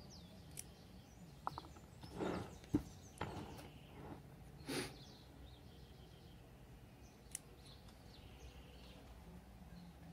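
Small scissors snipping the leaves off a Portulacaria afra (elephant bush) stem: several short, scattered snips and clicks, with faint bird chirps behind.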